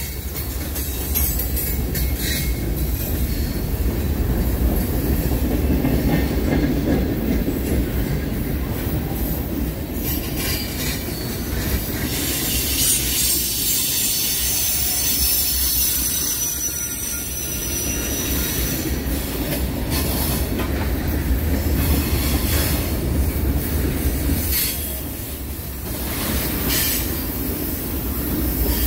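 Loaded freight cars (tank cars and covered hoppers) rolling past close by, their steel wheels rumbling steadily on the rails. High-pitched wheel squeal on the curve comes and goes, with a thin squealing tone around the middle.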